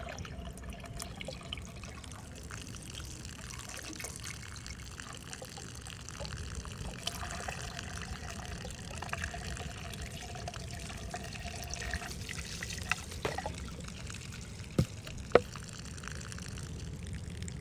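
Water flushed through a funnel into a flow-through humidifier's drain line, trickling and splashing steadily as it clears the drain. Two sharp knocks come near the end.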